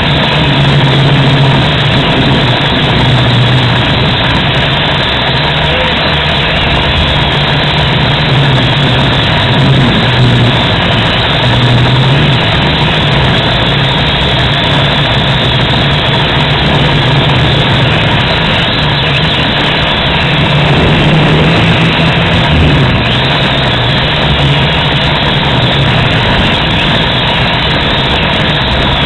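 FPV quadcopter's motors and propellers buzzing loudly throughout the flight, their low hum wavering in pitch as the throttle changes, under a heavy wash of noise.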